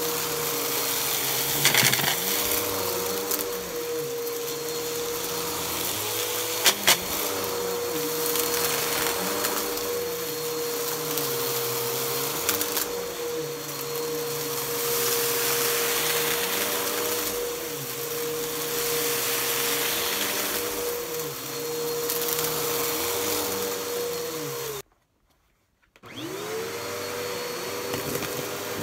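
Bissell PowerForce upright vacuum running on carpet, its motor pitch dipping and rising in a slow rhythm as it is pushed back and forth, with two sharp clicks about two and seven seconds in. Near the end the sound drops out for about a second, then the motor spins back up and the hose wand sucks at a pile of debris.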